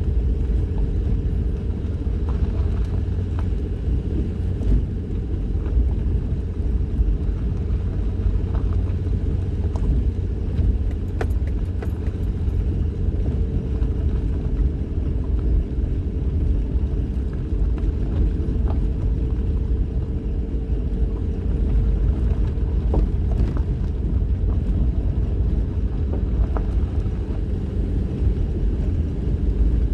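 Vehicle driving along a mountain road: steady engine and road rumble with a faint steady hum, and a few light clicks.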